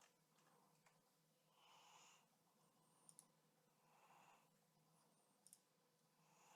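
Near silence: a couple of faint breaths and a few soft clicks.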